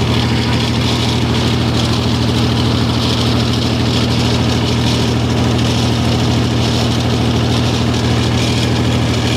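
Mahindra diesel generator engine running at a steady speed, a constant low hum and clatter with no change in pitch.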